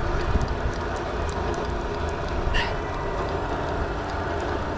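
Fly reel clicking irregularly as a hooked rainbow trout is played on the line, over a steady low rumble. A brief high chirp sounds about halfway through.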